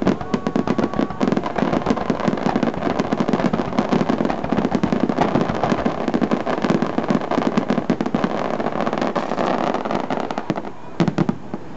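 Fireworks finale: a dense barrage of aerial shells bursting, with rapid crackling and popping, many reports a second. The barrage thins briefly near the end before more bursts.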